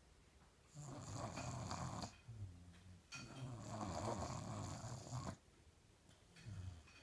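A six-month-old snoring in sleep: two long snores of about two seconds each, then a short fainter one near the end.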